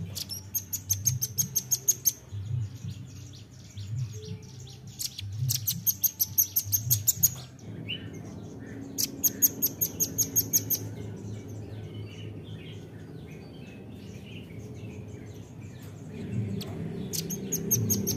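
Velvet-fronted nuthatch (rambatan) calling in four rapid bursts of sharp, high notes, about seven a second, each burst lasting a second or two, with a quieter gap in the middle, over a low background hum.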